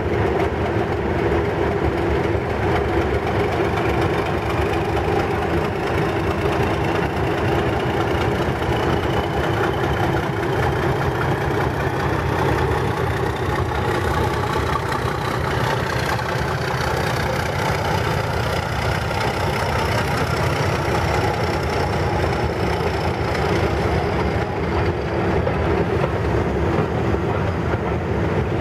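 Class 31 diesel-electric locomotive 31128, with its English Electric V12 engine, pulling away with a train of coaches: a steady engine drone, with a whine that climbs in pitch as the train gathers speed.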